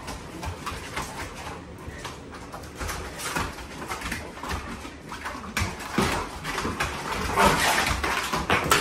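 Dogs' paws scrabbling on the vinyl liner of a foldable plastic pool, a busy run of rustling, scratching and claw clicks with a few soft thumps, loudest and densest near the end.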